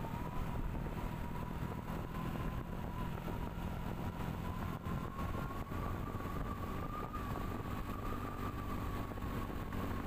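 Engine and road noise of a moving vehicle heard from on board, a steady low rumble with a high whine that climbs a little in pitch midway and eases back near the end.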